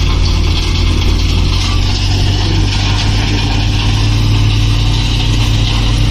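Diesel engine of a Tata Signa 5525.S tipper truck running steadily while its hydraulic hoist raises the tipper body to dump crushed stone, a constant low hum with no breaks.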